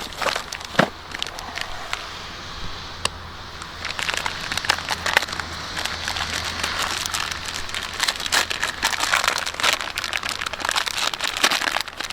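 Small crackling firework going off: a rapid, irregular stream of sharp snaps and pops that grows denser about four seconds in, with one sharper crack about a second in.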